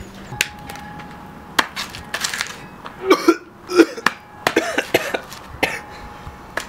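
Footsteps of shoes on concrete: an irregular string of sharp clicks and knocks, heaviest around the middle.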